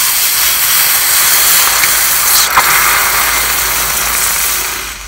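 A freshly melted gold-and-silver alloy bead on a steel spoon quenched in a bowl of water, hissing loudly as the water flashes to steam around the hot metal, with one sharp crackle midway. The hiss fades away near the end as the bead cools.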